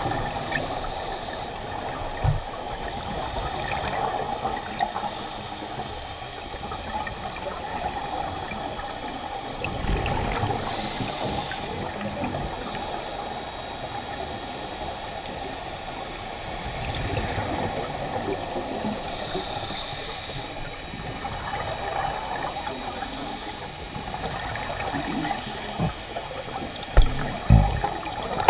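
Underwater sound through a diving camera's housing: a steady watery wash with bursts of scuba exhaust bubbles from a regulator every several seconds. A few short low thumps, two close together near the end.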